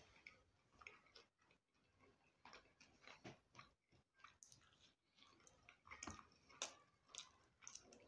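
Quiet close-up chewing and mouth smacks of a person eating fried fish and white bread, with irregular soft clicks, a little louder about six seconds in.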